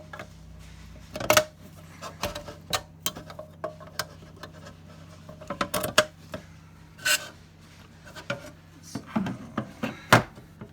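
Handling noise from audio interfaces and their cables being moved and swapped: irregular clicks, knocks and rubbing, with a faint steady low hum underneath.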